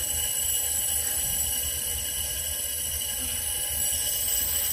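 Steady rush of compressed air from a leak-down tester pressurising cylinder three of a VW BWA turbocharged engine, the air escaping past the piston. This is heavy blow-by, about 50% leakage, which the mechanic puts down to broken ring lands.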